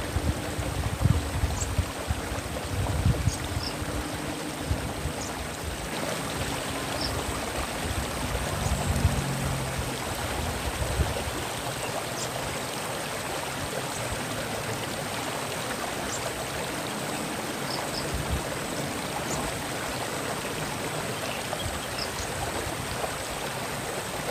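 Steady rush of flowing stream water, with scattered brief, high-pitched chirps from a sunbird. A low rumble sits under the water for roughly the first ten seconds.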